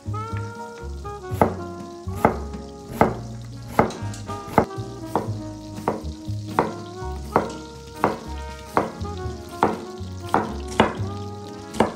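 Background music with a steady beat and pitched notes, over food sizzling in a frying pan.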